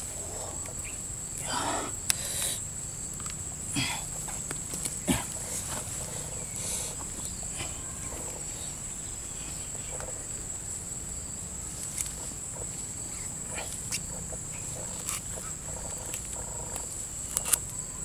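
Hands scrabbling through rotten coconut-trunk fibre, with scattered short rustles and snaps, over a steady high-pitched insect drone.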